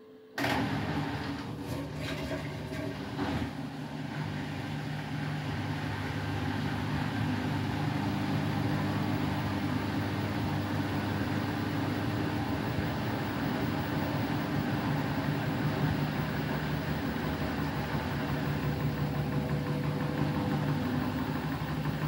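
Beko WTK104121W washing machine's drain pump switching on suddenly and running with a steady hum over rushing water as the drum empties, with a few short knocks in the first seconds.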